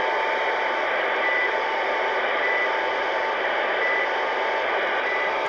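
CB radio receiver hissing with static from a keyed-up signal that carries no speech, a steady tone running through it and a short high beep about every second and a half.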